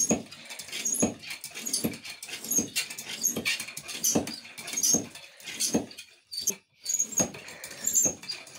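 Hand floor pump worked in steady strokes, about one every 0.8 seconds, each a wheezy rush of air, with a brief pause a little past six seconds in. It is inflating a car inner tube inside a snow tube.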